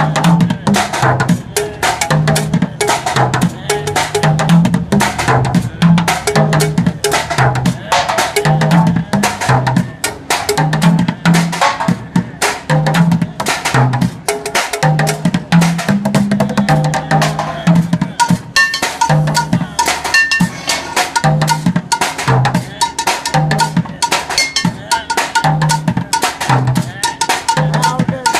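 Drumsticks beating on plastic water jugs, buckets and pans in a fast, steady street-drumming groove: rapid stick strikes over regularly repeating low hits, with brighter metallic clanks joining about two-thirds of the way through.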